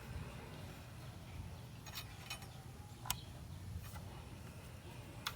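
Four short, faint clicks of hand tools and small metal parts being handled while fitting a motorcycle's front brake caliper, over a low steady hum.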